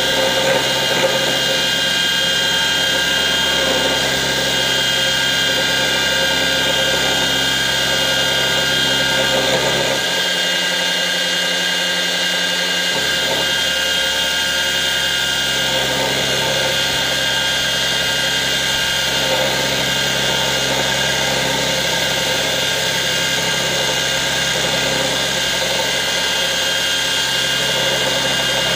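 Water-cooled slow-speed cut-off saw running steadily, its fine abrasive disc grinding slowly through stainless steel with a steady whine. Partway through, the low hum changes for about three seconds, then returns.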